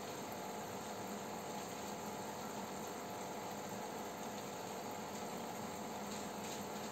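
Aquarium air pump and filter running: a steady hum with an even hiss.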